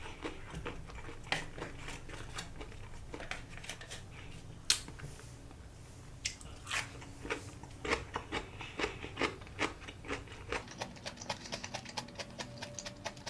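Close-up mouth sounds of someone chewing sushi: irregular wet clicks, busier in the second half, with one sharper click about five seconds in.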